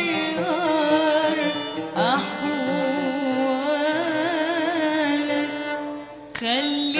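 Live Arabic pop music between sung lines: a melody held in long notes with vibrato over the band's accompaniment. The music drops away briefly about six seconds in, then comes back with a rising slide.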